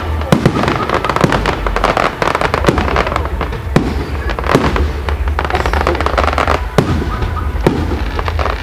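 Fireworks display: a dense run of sharp bangs and crackling reports from bursting shells, one after another, over a steady low rumble.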